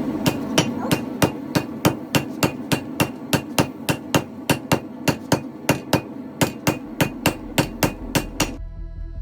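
Hand hammer striking hot steel on an anvil while forging an axe head: a steady run of sharp blows, about three a second, that stops near the end. Held music tones follow.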